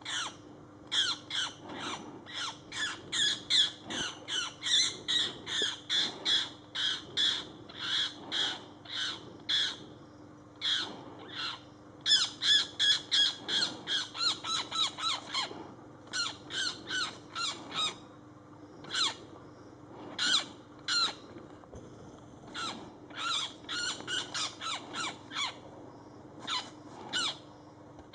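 A bird giving short calls in quick runs, about two or three a second, with brief pauses between the runs. A faint steady hum lies underneath.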